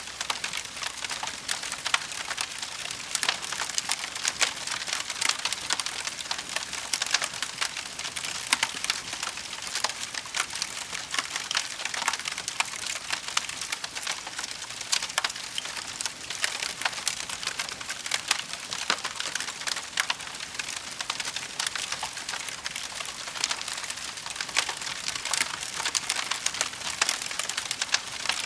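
Wood fire in a fireplace crackling: a dense, steady stream of small crackles over a soft hiss, with louder snaps every second or so.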